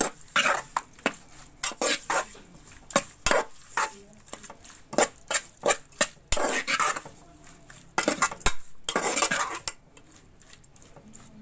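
Metal spoon scraping and clinking against a steel pot while stirring raw chicken pieces into a wet spice marinade: many short clinks, with two longer scrapes around six and eight to nine seconds in.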